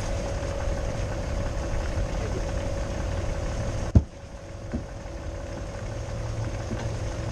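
Vehicle engine idling with a steady low rumble and a constant hum. A single sharp knock about four seconds in, after which the rumble briefly drops and then picks back up.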